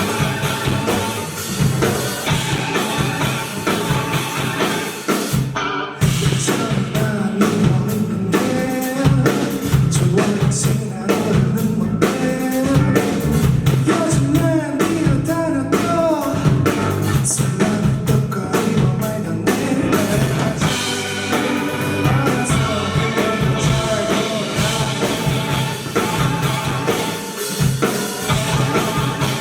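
Rock band playing live: a singer over a drum kit and band, the sung melody most prominent through the middle.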